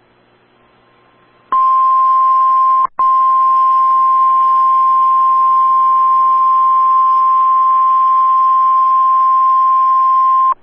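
NOAA Weather Radio 1050 Hz warning alarm tone, sounded as a test of the alarm that switches on weather radio receivers. It is one steady, loud high tone that starts about a second and a half in and holds for about nine seconds, with a brief dropout about three seconds in.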